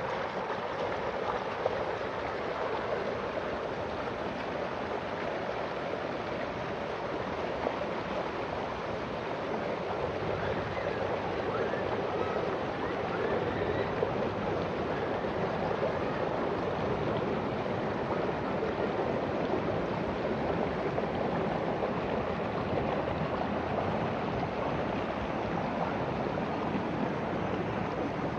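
Shallow rocky river rushing and splashing over and between boulders in small rapids: a steady, even rush of water.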